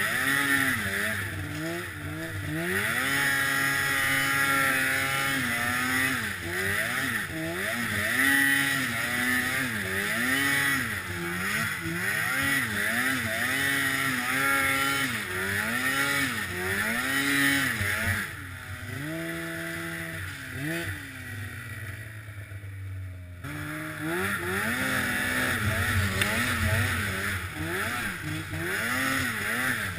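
1997 Polaris Indy RMK 700 snowmobile's two-stroke engine revving up and down over and over under riding throttle. In the last third the throttle eases off and the pitch sinks for a few seconds, then it revs up again.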